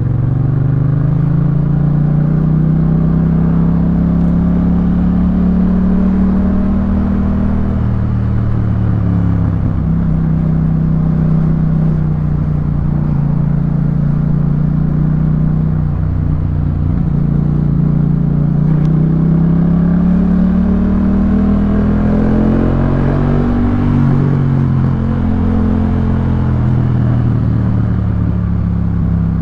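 2018 Yamaha MT-07's 689 cc parallel-twin engine running through a Jeskap K4 full aftermarket exhaust while being ridden. The engine note rises and falls with the throttle, with a few breaks in pitch where the gear changes.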